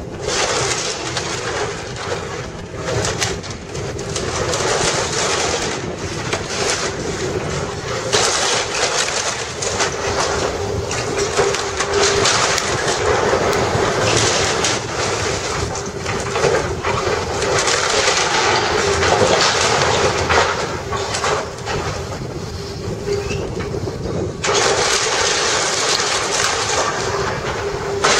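Hitachi excavator demolishing a timber building: the machine's engine and hydraulics make a steady hum under a continuous crackle and clatter of wood splintering and debris falling. The clatter grows louder about a third of the way in.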